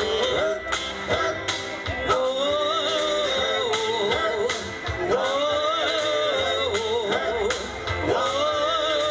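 A doo-wop vocal group singing live through a PA, male voices carrying the melody over music with a steady beat.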